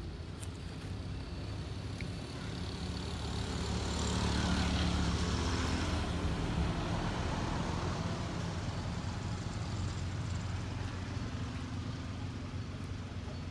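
Steady low engine drone that swells to its loudest about four to six seconds in, then eases back.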